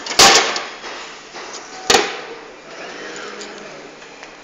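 Coffee vending machine clanking: a loud clunk just after the start that rings briefly, then a second, sharper knock about two seconds later.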